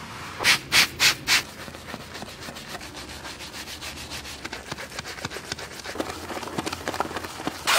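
A sponge rubbed across a car's door sill plate in four quick, loud strokes, then a small detailing brush scrubbing a foam-covered alloy wheel in fast, short strokes.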